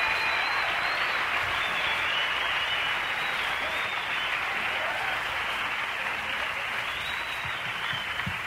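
Concert audience applauding after a song, with a few high whistles, slowly dying down.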